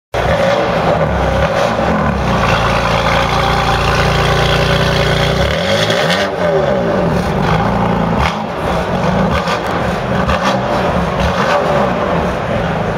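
BMW M4 (F82) with an Eisenmann aftermarket exhaust, its twin-turbo straight-six running loudly through the quad tailpipes. The revs rise and fall in a throttle blip about six seconds in, and again about eleven seconds in.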